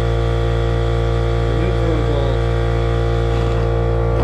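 A steady hum made of many held tones, strongest in the low range, running unchanged, with a faint wavering voice-like sound around the middle.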